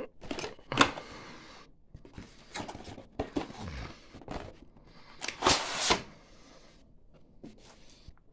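Cardboard model-kit box being handled: rustling and scraping as a tight-fitting inner box is slid out of its printed outer sleeve, with a few knocks on the table. A sharp scrape comes about a second in, and a louder, longer scrape just after five seconds.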